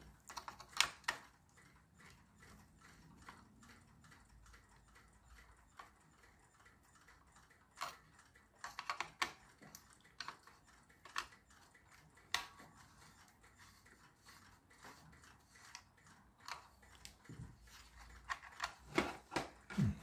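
Faint, scattered clicks and small knocks of a screwdriver and hands against the plastic chassis and rear coil-spring shocks of a New Bright toy RC car, as the shock adjusters are worked; a few sharper clicks come around the middle.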